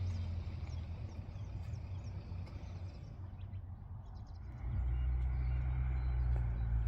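Small birds chirping faintly over a steady low rumble, which grows louder about two-thirds of the way through.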